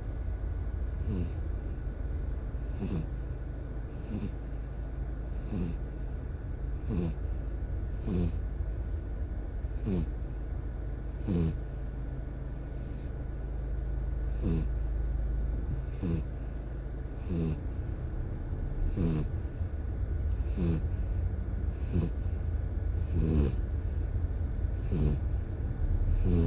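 A dog snoring in deep sleep, about one snore every one and a half seconds. Each snore is a short sound with falling pitch and a breathy hiss, over a car's steady low rumble.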